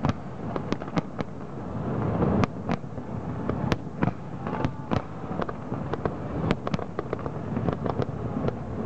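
Aerial fireworks exploding in quick succession: many sharp bangs and crackles, several a second, over a steady low rumble.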